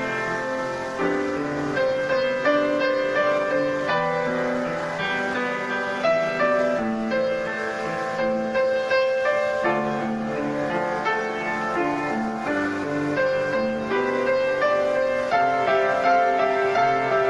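Piano music: a gentle melody over held chords.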